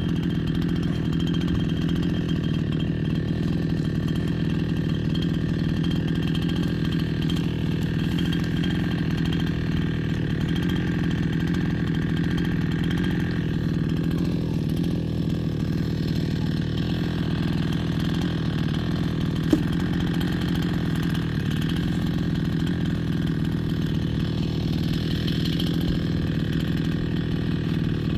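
70cc two-stroke chainsaw running steadily at an even pitch while bucking a hard stringybark log into rounds.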